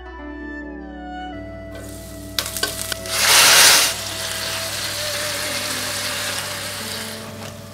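Sliced lamb stir-fried in hot oil in a wok, sizzling, with a few clicks and then a loud burst of sizzling about three seconds in, settling into a steady sizzle while a metal spatula stirs.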